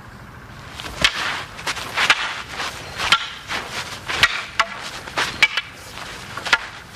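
Wooden six-foot staffs (rokushaku bo) knocking together in a series of sharp clacks, roughly one to two a second from about a second in, with rustling movement between the strikes.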